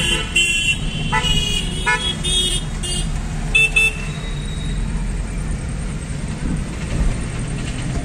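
Vehicle horns in city traffic honking in a quick series of short toots during the first half, heard from inside a moving car. Under them runs the steady low rumble of the car's engine and road noise.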